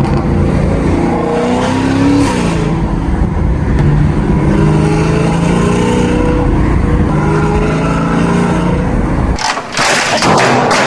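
Chevrolet Camaro 2SS's 6.2-litre V8 running under way, its note rising and falling with the throttle. Near the end the engine sound gives way briefly to a burst of rushing noise.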